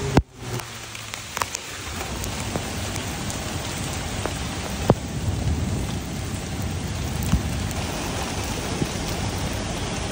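Heavy rain falling steadily: a dense hiss with single drops striking close by every second or two.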